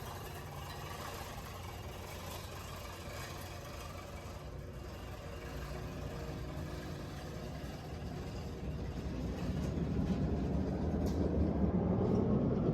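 Manual push reel lawn mower being pushed through grass, its spinning reel blades whirring and cutting steadily, growing louder over the last few seconds.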